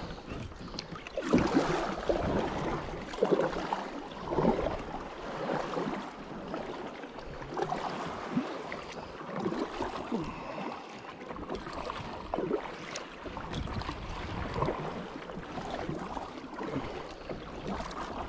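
Water splashing and sloshing in irregular surges about once a second, with wind rumbling on the microphone.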